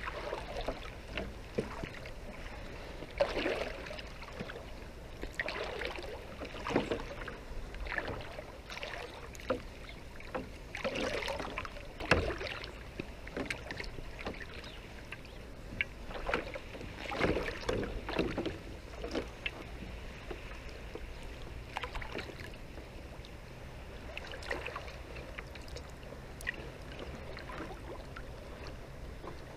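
Shallow sea water splashing and sloshing in irregular bursts as a set net's float line is hauled in by hand.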